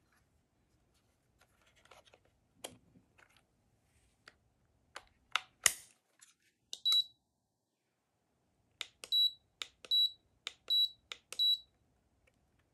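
JAXWQ handheld stud finder: sharp plastic clicks as it is handled, then about five short high-pitched beeps, each right after a button click, as its buttons are pressed with the display lit.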